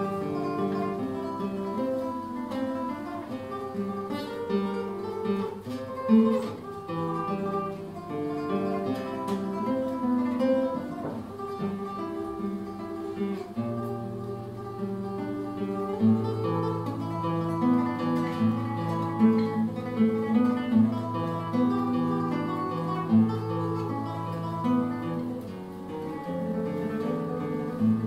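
Solo nylon-string classical guitar played fingerstyle: a melody over a moving bass line, the low bass notes sounding stronger in the second half.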